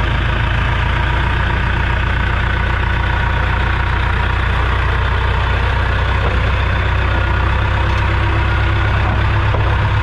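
John Deere 455G crawler loader's diesel engine running at a steady speed, close to the microphone.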